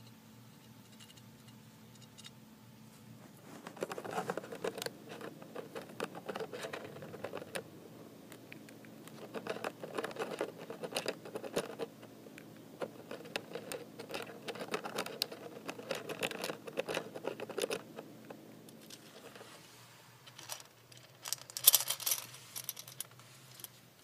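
Roborovski dwarf hamster gnawing and crunching a treat: fast, crackly chewing in spells of a few seconds. Near the end comes a short burst of louder, sharper crackling.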